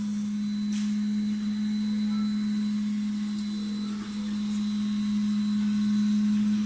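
MINGDA MD-6L large FDM 3D printer running: a steady low hum with a few faint ticks.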